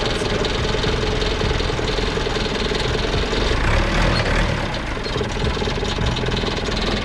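Loader's engine running steadily at a constant speed, with a steady hum under it; it swells slightly about four seconds in.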